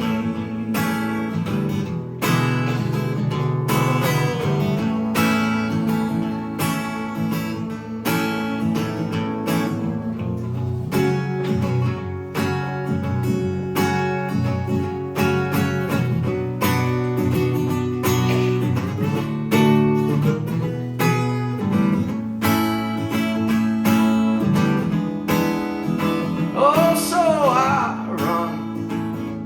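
Acoustic guitar strummed steadily through chord changes in an instrumental break of a folk song.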